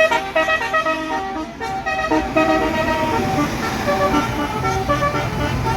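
Tour bus's Basuri multi-tone 'telolet' air horn, trumpets mounted on the roof, playing a quick tune of short notes that jump between pitches. The low run of the bus engine is heard beneath it in the second half.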